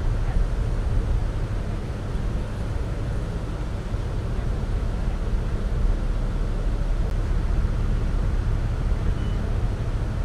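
Steady low rumble of a tour catamaran's engine, heard from inside the passenger cabin.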